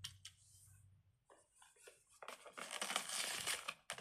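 A few light clicks, then plastic packaging crinkling and rustling as it is handled, starting about two seconds in.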